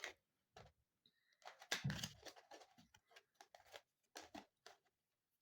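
Tarot cards being drawn from the deck and laid down: faint scattered clicks and soft rustles of card on card, busiest around two seconds in.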